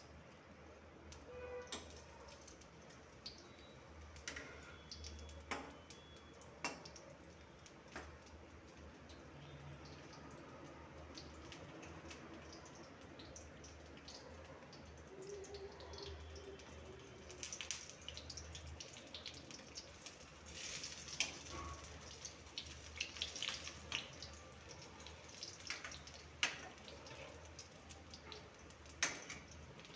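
Besan bari (gram-flour dumplings) frying in hot oil in a kadhai: a faint steady sizzle with scattered crackles and pops that grow busier in the second half. Near the end a metal spoon scrapes and clinks against the pan as the dumplings are turned.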